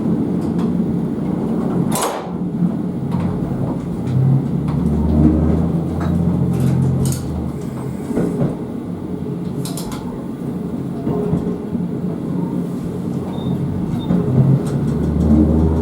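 KiHa 54 diesel railcar running, its diesel engine humming under steady rail noise with scattered clicks. The engine note comes up about four seconds in and again near the end.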